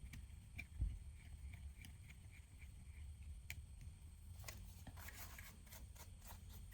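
Faint clicks and light scraping of small hand tools working on an opened smartphone, with a soft knock about a second in and a busier patch of scratchy clicks in the second half.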